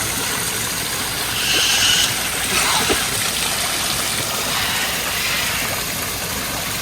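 Steady rush of running water, an even hiss with no rhythm, with a brief higher sound about a second and a half in.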